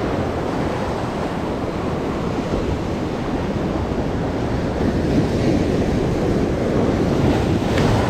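Sea surf breaking and washing over shoreline rocks: a loud, steady rushing wash of foaming water.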